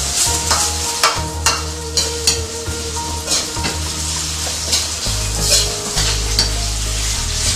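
Marinated chicken pieces sizzling in a wok of hot oil, oil-blanched just until they turn white, while a metal ladle stirs them and clacks irregularly against the wok.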